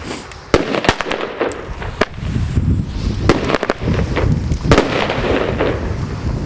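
Fireworks going off: irregular sharp bangs over continuous crackling and rumbling.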